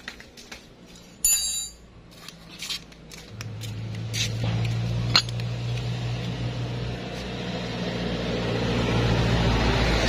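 Small metal clicks and clinks as CVT roller weights and variator parts are handled, with a short, loud scrape about a second in. From about three seconds in, a steady low mechanical hum comes in and slowly grows louder.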